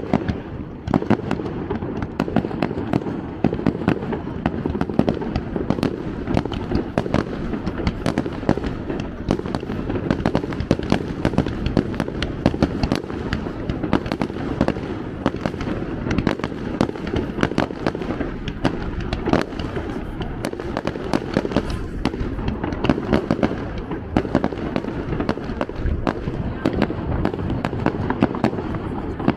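Japanese fireworks display going off in a dense, continuous barrage: many sharp bangs and crackling bursts every second, with no pause.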